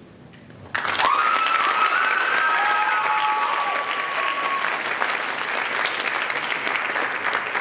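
Audience applause breaking out suddenly just under a second in and carrying on steadily, with a few high whistles gliding up and down through the first few seconds of clapping.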